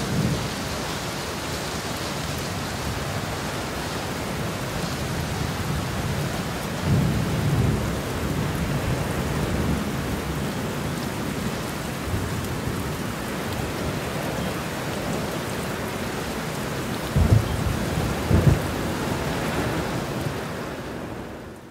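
Steady rain-like hiss with low thunder rumbles about seven seconds in and twice near the end, fading out at the very end.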